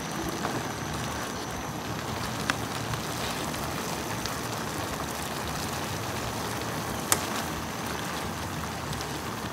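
Squash and shrimp in broth boiling in a pan, a steady bubbling hiss, with a few sharp clicks, the loudest about seven seconds in.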